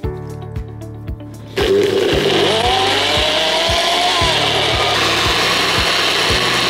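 Personal bullet-style blender switching on about one and a half seconds in and running steadily as it chops raw pumpkin chunks into purée, its motor whine rising and falling as the load changes. Background music with a steady beat throughout.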